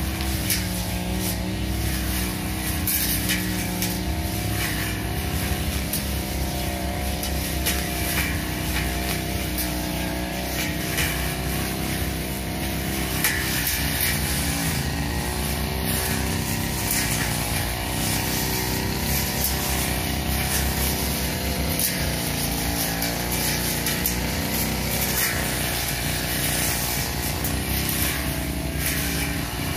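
A 328 brush cutter engine running steadily at working speed, its pitch wavering slightly as the 45 cm blade cuts through grass and weeds, with frequent brief ticks over the engine sound.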